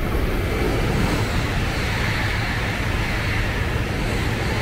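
E5 Series Shinkansen bullet train running at speed: a steady rushing noise over a low rumble, swelling at the start and then holding even.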